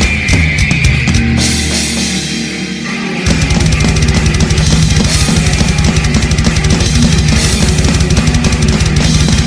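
Heavy metal instrumental music with fast drumming. After a quieter build-up, the full band comes back in hard about three seconds in.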